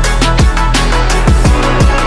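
Background electronic music with a heavy beat: deep kick drums that drop in pitch, a few a second, under a dense layered mix.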